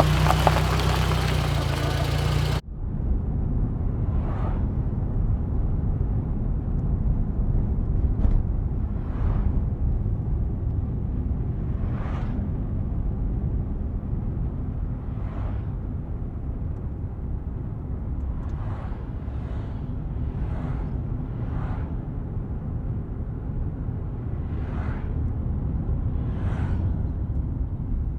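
A loud hiss-like noise cuts off abruptly about two and a half seconds in, giving way to a steady low vehicle rumble with short swishes every second or few.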